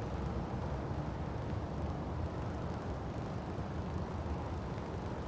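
A steady low rumble with no distinct knocks or tones.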